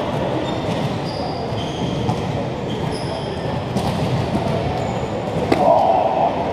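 Hubbub of many people talking at once in a large echoing sports hall, with short high squeaks from sports shoes on the court floor and one sharp knock about five and a half seconds in.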